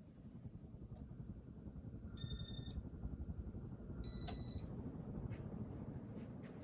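Casablanca Cambridge ceiling fan speeding up to high, its low hum and air rush growing louder over the first few seconds. Two short electronic beeps from its IntelliTouch speed control sound about two and four seconds in.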